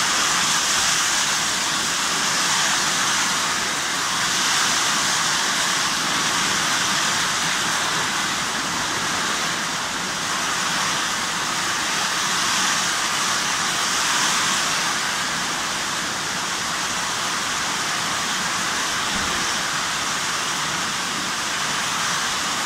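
Heavy tropical rain pouring down on a corrugated metal roof and the yard around it, a loud, steady hiss that swells and eases slightly every few seconds.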